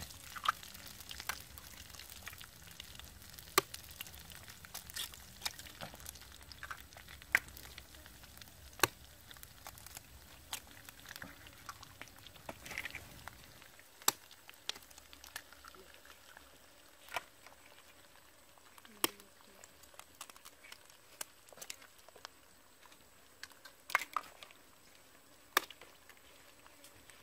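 Eggs frying in a clay pan over a wood fire: a faint steady sizzle with scattered sharp pops and crackles.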